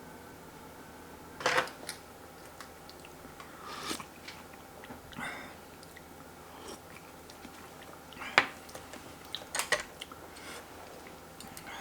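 Close-up eating sounds: a few separate bites and crunches with chewing, and light clicks of utensils against a dish, the loudest about one and a half seconds in and again around eight to ten seconds in.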